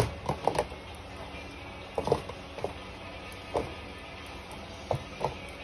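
Kitchen clatter as sliced jicama is tipped from a plastic container into a steel pan: about eight scattered knocks and clinks of the container and a metal pan lid, over a low steady hum.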